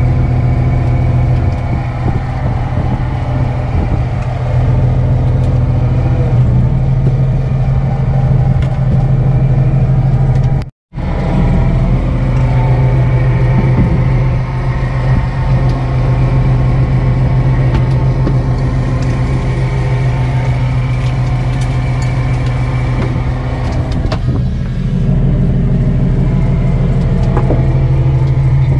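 A fishing boat's engine running with a steady drone, broken for an instant about eleven seconds in.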